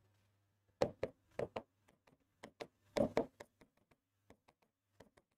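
Stylus tapping and ticking against an interactive board's screen as short dashes are drawn. The clicks are irregular, with the loudest clusters about one second in and again about three seconds in.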